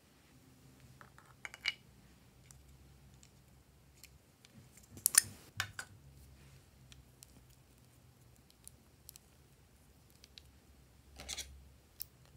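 Scattered sharp plastic clicks and taps from handling lip balm tubes, loudest about five seconds in, then a short snipping rustle of scissors cutting into a lip balm stick near the end.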